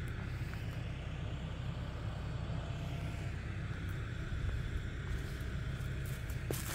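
Old working rice mill running, its stationary engine and milling machinery giving a steady low rumble.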